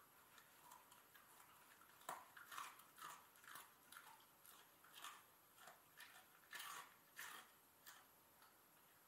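A whippet crunching a hard treat: faint, irregular crunches, several a second, starting about two seconds in and stopping near the end.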